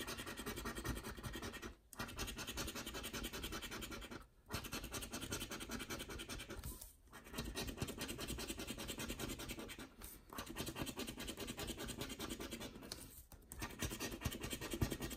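A round plastic scratcher rubbing the coating off a scratch-off lottery ticket in rapid back-and-forth strokes, with a brief pause every two to three seconds.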